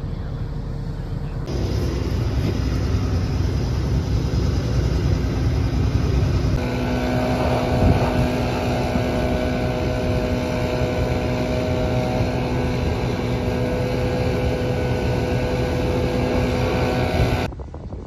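Large John Deere diesel farm machinery, tractor and combines, running steadily with a deep rumble and wind on the microphone. The sound shifts abruptly twice, and from about six and a half seconds in a steady engine hum with a faint whine runs over the rumble, then drops away suddenly near the end.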